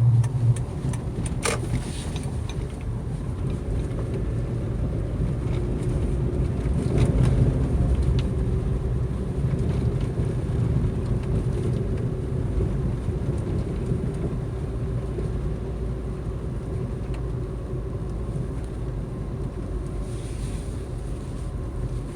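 Car driving on a highway, a steady rumble of road and tyre noise with a faint hum, and one sharp click about a second and a half in.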